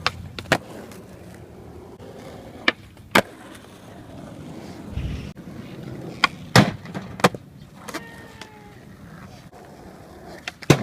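Skateboard wheels rolling on pavement, broken by a series of sharp board clacks and landing impacts, the loudest about six and a half seconds in.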